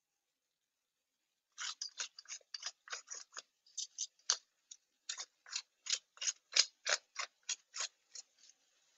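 Hand pepper mill being twisted over a pan: about two dozen short, crunching grinds at roughly three to four a second, starting about a second and a half in and stopping shortly before the end.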